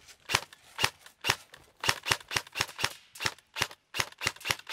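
Airsoft gun firing a rapid string of sharp shots, about four a second.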